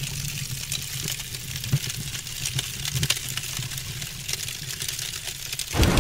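Low rumble with irregular crackling, like a fire sound effect. A loud boom breaks in near the end.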